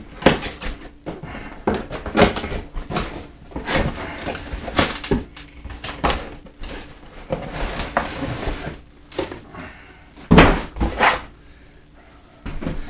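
Cardboard boxes being handled and opened: repeated scraping, rustling and knocks of cardboard, with a couple of louder thumps about ten seconds in.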